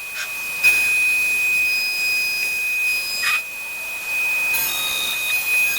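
Glass CNC machining centre cutting a cutout in glass: a steady high-pitched whine over a hiss, with a couple of short sharp scrapes, and further high tones joining near the end.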